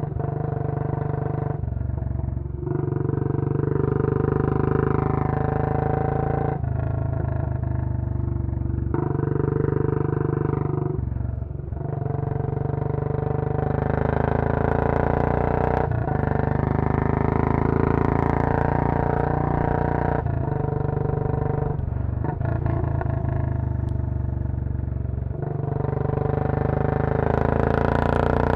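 Royal Enfield Bullet 500's single-cylinder engine, with a Punjab long-bottle silencer, pulling hard under way. The note breaks briefly three times in the first dozen seconds, like gear changes, then holds a steady run at speed with wind hiss on the microphone.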